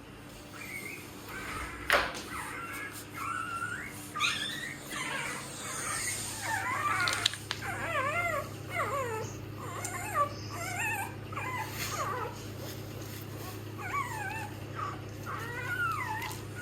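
Newborn German Shepherd puppies, a few days old, whimpering and squealing in a run of short cries that rise and fall in pitch, several pups overlapping, over a steady low hum.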